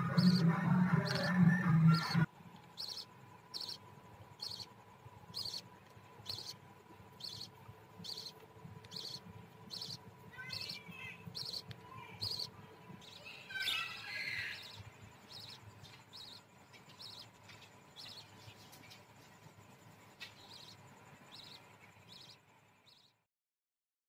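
Budgerigar chicks cheeping in a steady rhythm, about two short high calls a second, with a budgie chirping briefly about ten and again about fourteen seconds in. A louder, fuller sound in the first two seconds cuts off suddenly.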